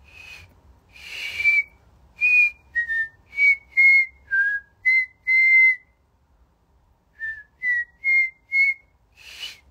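A woman whistling a tune through pursed lips: a phrase of about nine short notes with breathy starts, a pause, then four notes climbing in pitch, ending on a breath.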